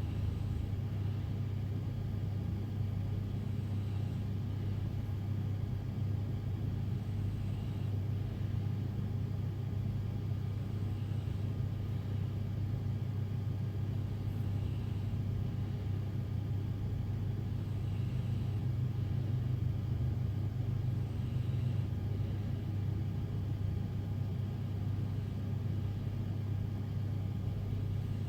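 Steady low rumble, with faint breaths of a sleeping person recurring about every three and a half seconds.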